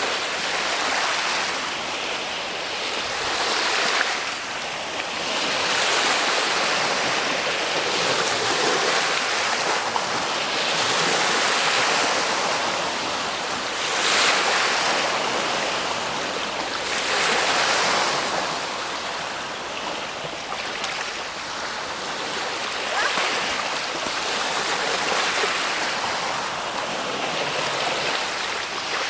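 Ocean waves breaking and washing ashore, a continuous rush of surf that swells and eases every few seconds.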